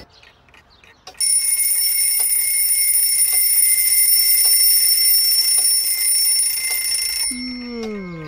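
Twin-bell alarm clock: faint ticking, then about a second in the bells start ringing loudly and steadily for about six seconds. The ringing cuts off and is followed by a tone that slides down in pitch near the end.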